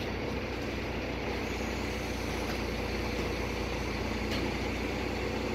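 Tow truck's engine running steadily while its rig holds the suspended dyno, giving an even hum with no revving.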